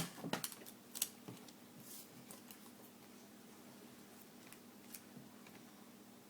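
Craft materials (paper, tape, scissors) handled on a tabletop: a sharp click right at the start and a few lighter clicks and taps in the next second and a half, then quiet room tone with a faint low hum.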